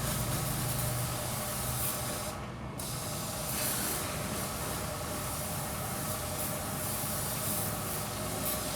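Water spraying from a hose onto a mountain bike during washing: a steady hiss, thinning briefly about two and a half seconds in.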